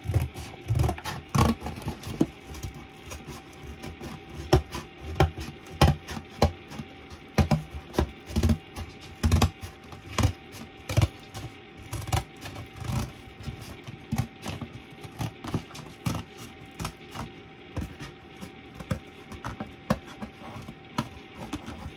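Scissors cutting through cardboard: a run of irregular crunching snips, about one or two a second.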